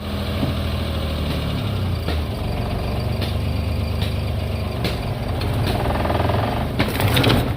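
Car engine running with a steady low rumble, a few sharp knocks over it, and a short, louder noisy burst near the end.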